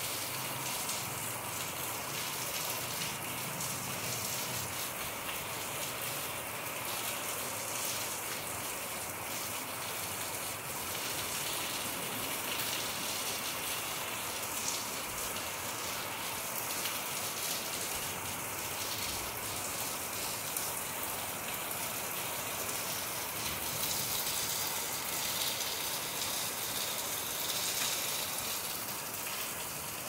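Steady rain falling on palm fronds, an even hiss with no let-up.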